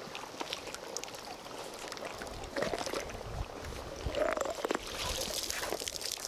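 Fire hose being handled as it drains: irregular rustling and scattered knocks, with low rumbling and a little gurgling of water.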